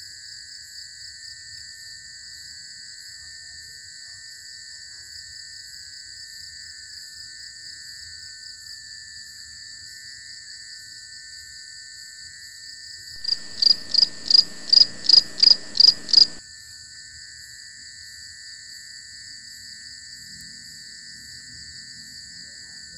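Night insect chorus of crickets, a steady high pulsing trill. About halfway through, a louder run of eight quick chirps lasting about three seconds stands out above it.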